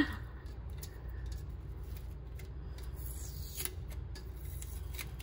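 Vinyl stencil being peeled off an epoxy-coated tumbler by hand: faint scattered scratchy ticks and crackles over a low steady hum.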